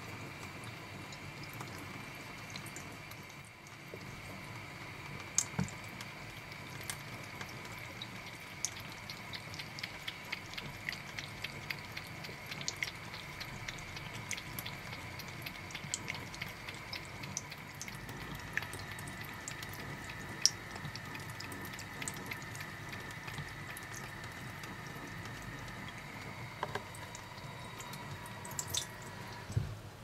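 Thin stream of tap water trickling from a faucet into a cupped hand, with many small wet clicks as a cat laps from the hand.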